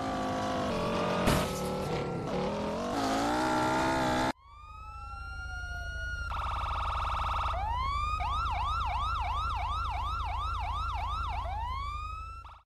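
For about four seconds, vehicle sound with several slowly bending tones and a sharp knock about a second in, then an abrupt cut to an electronic police siren that wails downward, holds a fast warbling tone, then yelps up and down about two to three times a second before stopping near the end.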